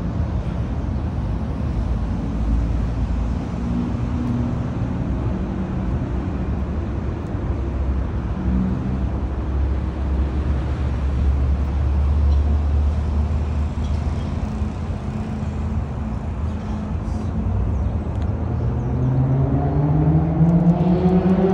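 Steady low rumble of a vehicle engine, its pitch rising steadily near the end as it speeds up.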